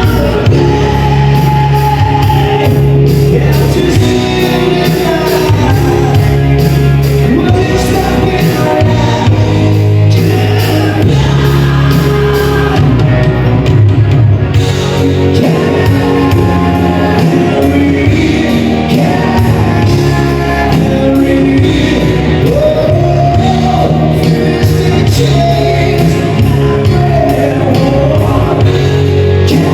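A live band playing with a singer: loud, continuous music with a strong bass and a vocal line.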